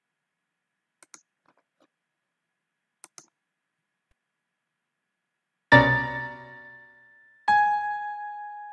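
Piano: two faint double clicks, then about six seconds in a loud chord spanning low to high that dies away quickly, followed a second and a half later by a single high note that keeps ringing.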